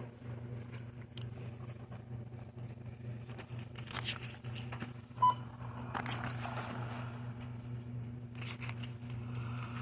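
A checkout barcode scanner gives one short beep about five seconds in, over a steady low electrical hum, with scattered clicks and rustles of items being handled at the counter.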